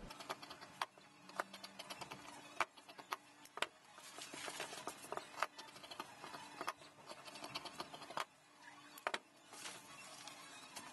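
Large tailor's shears cutting through jacket fabric on a cutting table, trimming about 1 cm off: a run of irregular sharp snips with fabric rustle. Near the end the snipping stops and there is a rustle of the garment being handled.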